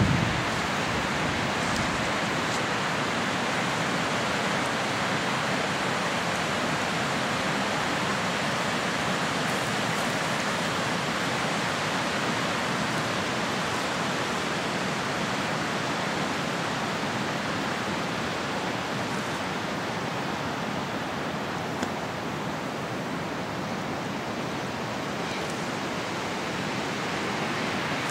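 Steady rushing of a fast mountain river tumbling over rocks: an even, unbroken whitewater noise.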